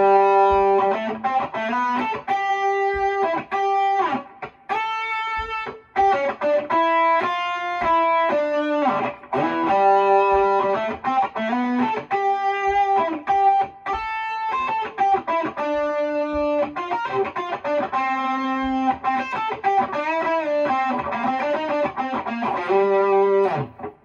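Yamaha SG electric guitar with OPG-1 pickups played through a distorted amp: melodic lead lines mixing held notes and quick runs, with a few brief pauses. The distorted tone is bright and slightly hard.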